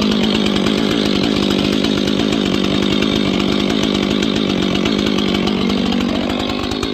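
Stihl 500i fuel-injected chainsaw running steadily while it warms up after a cold start, with its muffler baffle removed and the exhaust port opened up. The engine note eases off slightly near the end.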